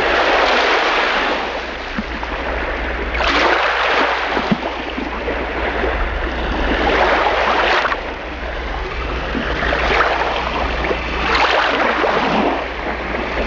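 Sea waves washing onto a shore, the surf swelling and falling back about every four seconds, over a steady low rumble.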